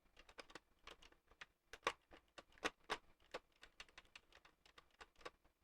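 Faint, irregular clicks and taps of puzzle box pieces being handled and pushed together, with a few sharper clicks in the middle.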